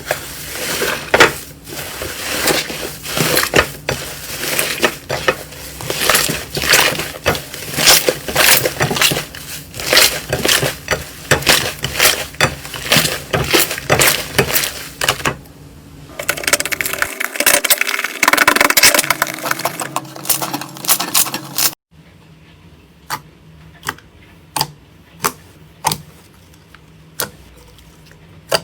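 Crunchy slime being squeezed and pressed by hand, with dense crackling, popping and clicking. After an abrupt change near the end, there are single sharp clicks about two a second over a quiet background.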